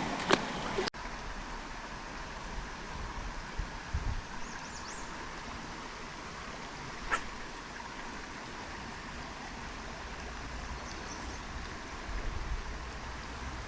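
Small stream flowing: a steady rush of water, with a single sharp click about seven seconds in.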